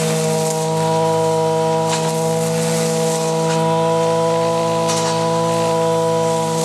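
Zenoah BCZ315 two-stroke brush cutter engine running steadily at high speed, its GISHER grass blade cutting knee-high grass, with a few brief swishes as it goes through the growth.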